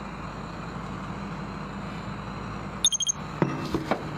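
A mobile phone's electronic alert: a quick run of short, high beeps about three seconds in, followed by a few light taps and clicks, over a low steady hum.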